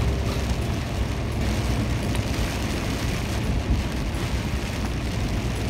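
Steady engine and road noise of a large truck on the move, heard inside the cab, with a deep low rumble.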